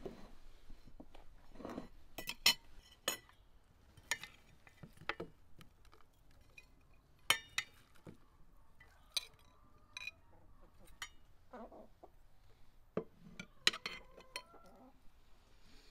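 Forks and a knife clinking against plates as food is served, a scatter of sharp, separate clinks.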